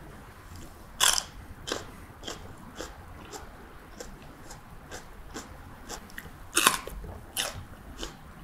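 A person biting crisply into a fresh green chili pepper and chewing it. There are two loud crunches, about a second in and again near the end, the second the louder, with a string of small crunching chews between them.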